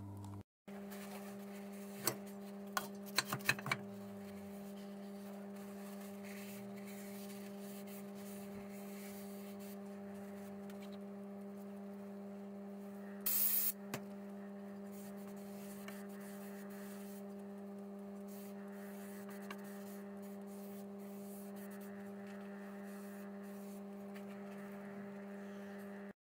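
Steady electrical mains hum, with a few light clicks of parts being handled about two to four seconds in and a short hiss about thirteen seconds in.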